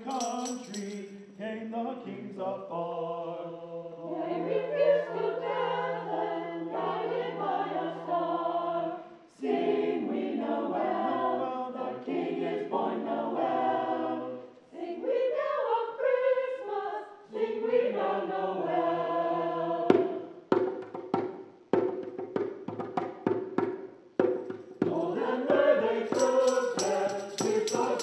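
Mixed church choir singing in parts. From about two-thirds of the way through, a run of sharp rhythmic strikes joins the singing.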